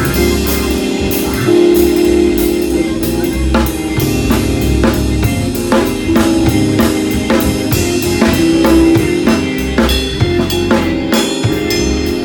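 Gospel band jamming: a drum kit plays a fast, busy pattern of snare and bass drum hits over sustained organ and keyboard chords.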